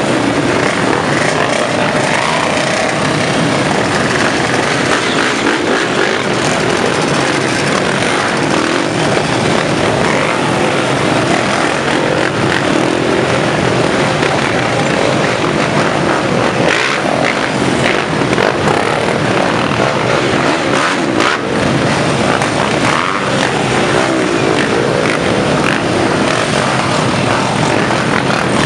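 Many off-road trail motorcycles riding past slowly in a procession, their engines running together in a dense, steady drone, with individual bikes revving up and down.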